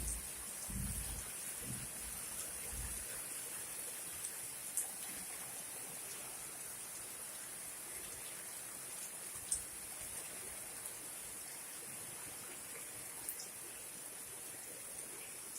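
Heavy rain falling steadily, a constant hiss with scattered sharp drip ticks. Low gusts of wind rumble in the first few seconds.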